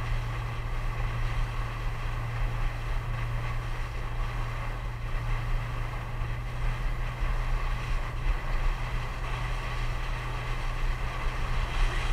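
Boat engine running steadily under way, a constant low hum, with water rushing in the wake behind the hull.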